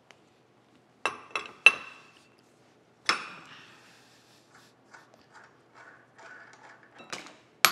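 Steel hand tools and parts clinking and clanking against a steam locomotive connecting rod on a steel workbench. There are three quick metallic clinks about a second in and a louder ringing clank around three seconds, then light scraping and handling, and two sharp ringing metal strikes near the end.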